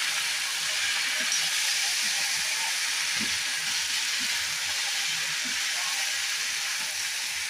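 Potatoes and cowpea beans frying with spices in oil in a steel kadhai: a steady sizzle, with the spatula stirring through the pan and giving soft knocks now and then.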